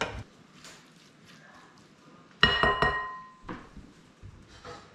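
Kitchenware clinking: a single sharp knock about halfway through that rings briefly, among quieter knocks and handling, as pots, bowl and utensils are handled while the sauce is moved into a glass bowl.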